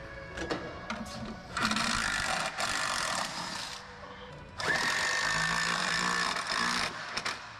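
Cordless power driver running in two bursts of about two seconds each, with a steady whine, driving bolts on a garage door operator's mounting. A few light knocks come before the first burst.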